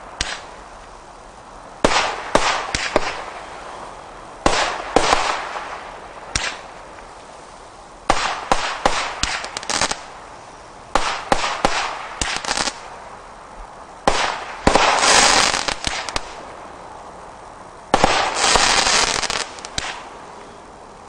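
Single-ignition firework cake firing volley after volley of sharp reports in quick bursts, with short pauses between them. Longer, denser barrages come around 15 seconds and again near 19 seconds.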